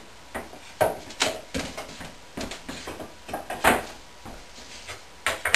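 Pine boards knocking and sliding against each other and a plywood base as a wooden box frame is fitted together by hand: a string of irregular knocks and short scrapes, the loudest a little past halfway through.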